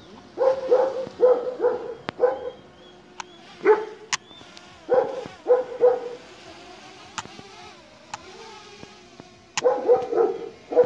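Kangal (Anatolian shepherd) dogs barking at a drone overhead, deep barks in short runs with a pause of a few seconds before another run near the end.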